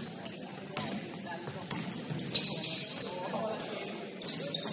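Basketball game in a gym: a string of sharp knocks from the ball and feet on the court, short high squeaks, and faint voices underneath.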